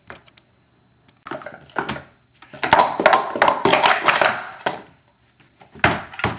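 Plastic sport-stacking cups clattering in a fast flurry as a 3-3-3 stack is built up and taken down on a stacking mat, ending in a couple of sharp knocks as cups tip over: a fumbled run.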